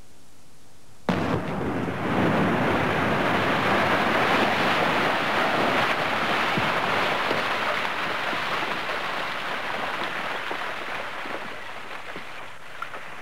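Gunpowder blast at a slate quarry face going off about a second in, then a long rumble and rush of slate cascading down the galleries that slowly dies away.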